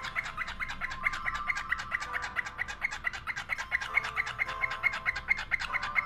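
Cockatiel singing a quick, even run of short chirping notes, about five a second, with a few held whistled tones under them.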